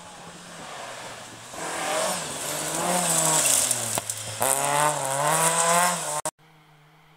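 Saloon rally car at speed on a gravel stage, engine revving hard as it approaches and passes, with tyre and gravel hiss. The pitch rises and falls, with a short break about four seconds in. The sound cuts off suddenly near the end, leaving a faint steady engine hum.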